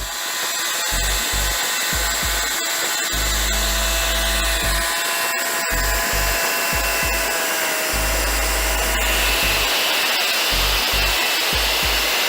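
A power saw running steadily and cutting wood, with a high whine under background music.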